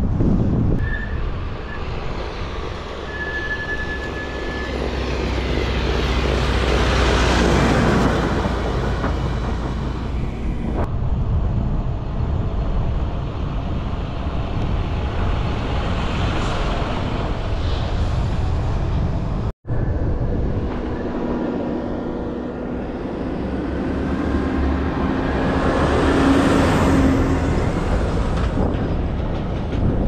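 Farm tractors towing trailers pass close by, their diesel engines swelling and fading twice, about a quarter of the way in and again near the end, over steady wind noise on the microphone.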